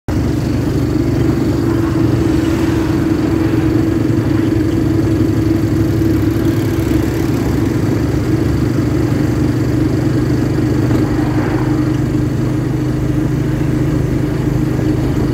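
Engine of a vehicle being ridden in, running steadily at cruising speed with a constant hum, under road and wind noise.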